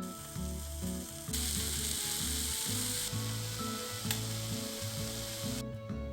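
Background music with a steady hiss over it, loudest between about one and three seconds in, that stops shortly before the end; a single sharp click comes about four seconds in.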